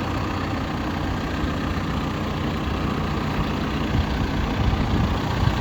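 John Deere 310SK backhoe loader's four-cylinder diesel engine idling steadily with a low hum.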